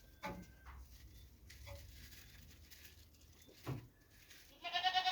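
A goat bleats once near the end, a short wavering cry. Before it there are a few faint knocks from handling.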